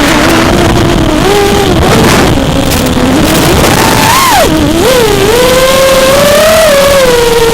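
FPV quadcopter's motors and propellers whining, the pitch sliding up and down with the throttle over a steady hiss of rushing air.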